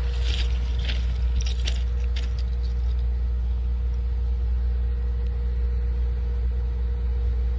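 Steady low engine hum with a faint steady whine from the standing train, running at idle. A few crisp crunches on the gravel ballast come in the first two seconds.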